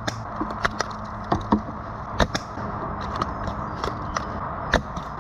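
A run of irregular sharp cracks and clicks, about a dozen, some close together in pairs, over a steady background hiss.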